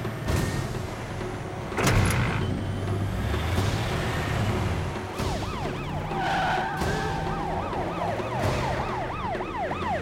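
Film chase soundtrack: a heavy engine rumbles and a loud bang comes about two seconds in. From about five seconds in, a siren yelps in fast rising-and-falling cycles, a police car siren, with a steady horn-like blast around six seconds.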